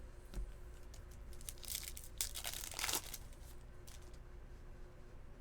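Crinkly tearing of a trading card pack's foil wrapper being ripped open, in two short stretches about two seconds in, the second longer, after a few faint clicks.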